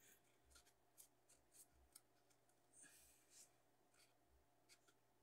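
Near silence, with faint scattered rustles and light taps from hands handling a small craft-foam box.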